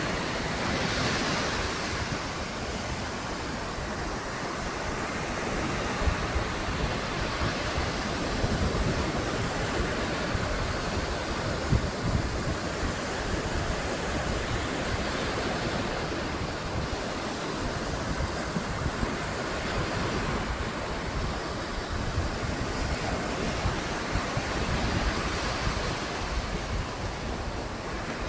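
Ocean surf washing in slow swells, with wind buffeting the microphone. A steady high-pitched tone runs over it.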